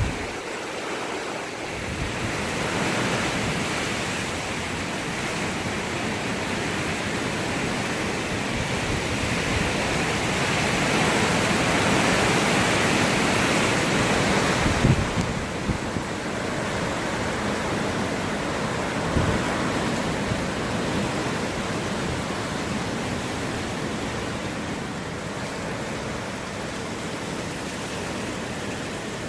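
Hurricane wind blowing hard and steadily during Hurricane Irma. It swells louder midway, then eases, with a couple of brief low buffets on the microphone.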